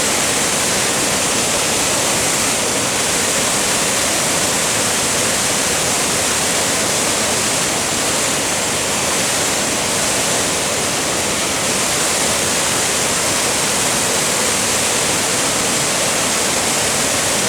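Waterfall: water pouring down over rock, a steady loud rush.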